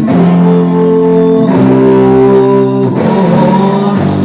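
Live rock band playing an instrumental guitar passage between sung lines: held electric guitar chords that change about every second and a half.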